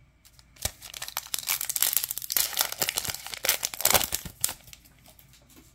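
Plastic wrapper of a trading card pack crinkling and tearing as the pack is opened by hand. The crackling lasts about four seconds and is loudest in the middle.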